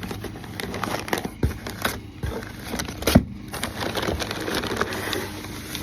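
A rock light kit's wiring harness and plastic packaging being handled: irregular crinkling and clicking, with a sharper knock about three seconds in.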